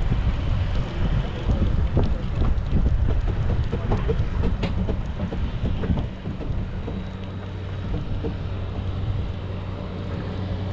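Boat motor running with wind on the microphone and repeated knocks of the hull over water. After about six seconds it settles into a steadier, slightly quieter engine hum.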